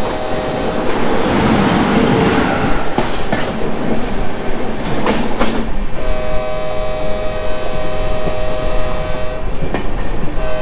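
Passenger train running on the track with a rumbling clatter and a few sharp clicks. Then a train horn sounds one long steady note from about six seconds in, with a short blast near the end.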